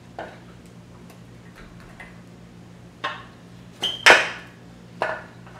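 A few separate metallic clicks and clinks of a torque wrench and socket being worked on the crankcase nuts of a VW Type 1 engine, the loudest and sharpest about four seconds in.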